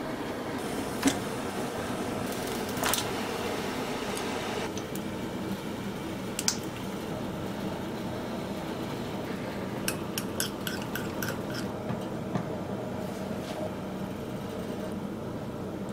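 Kitchen food-prep handling: light clicks and taps of dishes, utensils and silicone baking cups on a metal tray, over a steady low hum. There are single taps about one, three and six seconds in, and a quick run of clicks around ten seconds in.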